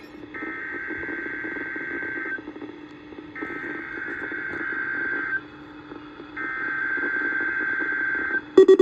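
SAME digital header from NOAA Weather Radio station KEC55: three bursts of raspy data screech, each about two seconds long and about a second apart, heard through a weather radio receiver with a faint hum and hiss behind. It is the coded start of the station's weekly test of its warning system.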